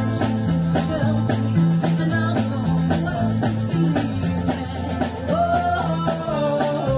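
Live skiffle and rock 'n' roll band playing. A bass line walks note to note under guitar and a steady drum beat, with a held melody line sliding between notes near the end.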